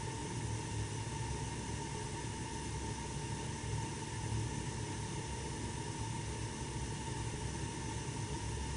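1988 Snyder General furnace running: a steady airy rush over a low rumble, with a constant mid-pitched whine.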